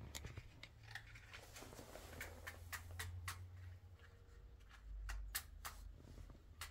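Faint, irregular light clicks and taps of a metal cooking pot and gas stove being handled, over a low steady rumble.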